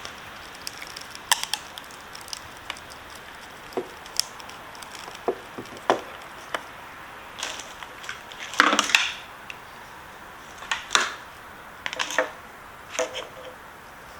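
Scattered small clicks, taps and rustles of hands handling a motorcycle's ECU wiring connector and loom, with a louder scraping rustle about nine seconds in and a few more short ones near the end.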